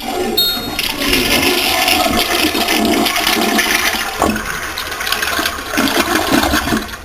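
A flush toilet flushing: a rush of water starting suddenly, running for about seven seconds and easing off near the end as the bowl drains.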